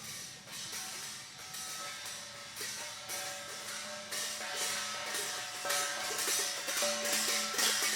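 Instrumental background music: a steady low drone under held melodic notes, with repeated percussion hits, growing gradually louder.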